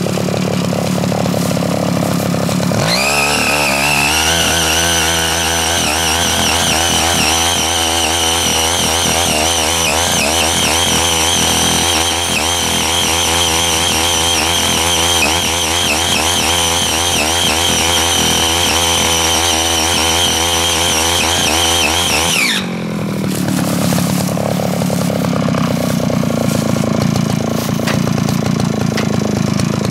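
Small petrol engine of a CY80 mini power tiller idling, then opened up to full throttle about three seconds in, running hard with a slightly wavering pitch as its rotary tilling blades dig into hard marlstone soil. About twenty seconds later it drops back to idle.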